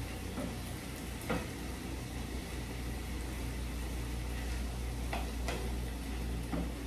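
Diced zucchini, yellow squash and onion sizzling in a frying pan on a gas burner, stirred with a wooden spatula that knocks against the pan a few times. A steady low hum runs underneath.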